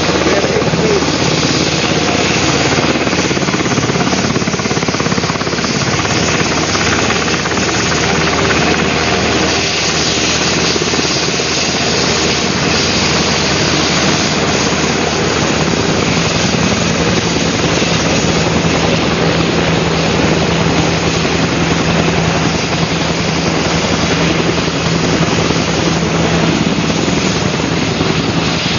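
Helicopter running with a steady, loud wash of engine and rotor noise; a low steady hum joins about halfway through.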